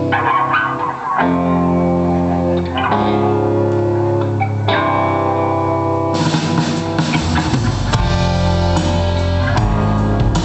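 A rock band playing live at a sound check: held electric guitar chords that change every second or two, then drum kit with cymbals and bass guitar joining about six seconds in.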